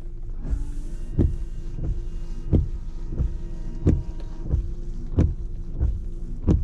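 Car engine running, heard from inside the cabin, with a regular low thump about every two-thirds of a second.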